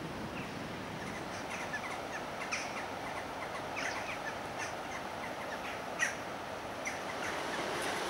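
Wild birds chirping in short, scattered notes over a steady rush of river water, with one louder, sharper call about six seconds in.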